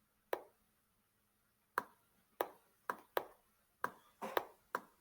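A series of short, sharp clicks or taps, about eight, irregularly spaced, with a couple coming close together near the end.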